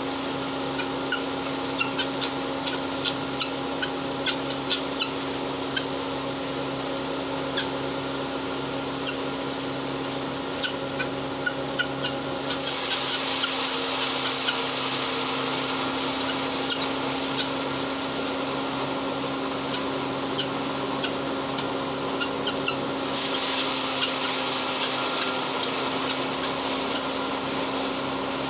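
Electric-motor-driven posho mill (hammer mill) running steadily while grinding maize, with a steady hum. A rushing hiss comes in about halfway through and swells again near the end, and short high ticks sound over it, mostly in the first half.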